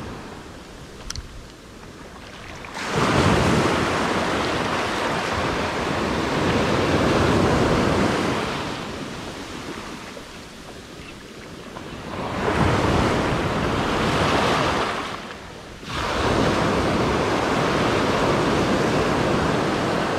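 Small surf breaking and washing up a sand beach, swelling loud and falling away in three long surges, with some wind on the microphone.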